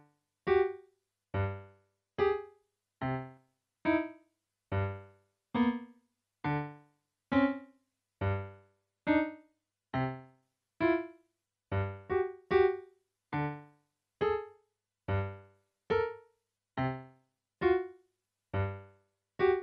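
Solo keyboard music in a piano voice: single chords struck at a steady pace, about one a second, each dying away with silence before the next. A few quicker notes come a little past the middle.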